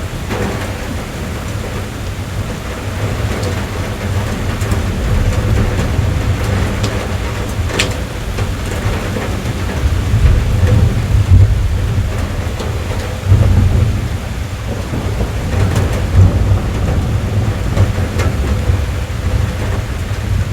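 Rain drumming on a car roof and running down the glass, heard from inside the cabin, over a deep low rumble that swells now and then. A few sharper single drop ticks stand out.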